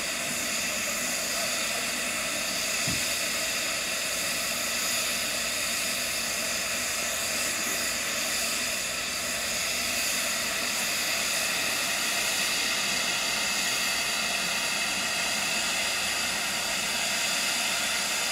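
Steady hiss of steam escaping from a stationary LMS Ivatt Class 2MT 2-6-2T steam tank locomotive, with no exhaust beats.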